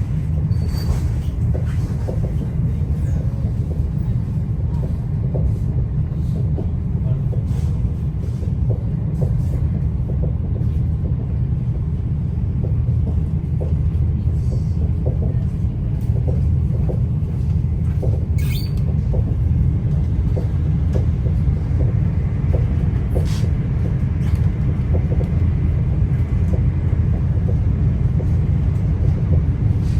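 Etihad Rail passenger train running, heard inside the passenger cabin: a steady low rumble with faint scattered clicks and a couple of brief sharper ticks.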